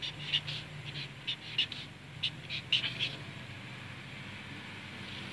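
Felt-tip marker squeaking on paper in a quick run of short strokes as small boxes are drawn, stopping about three seconds in.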